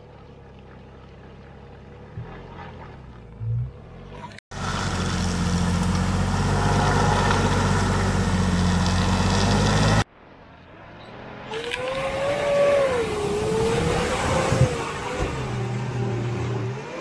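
Off-road 4x4's engine working under heavy throttle, its pitch rising and falling as the revs change. The sound jumps abruptly in level twice, about four and ten seconds in.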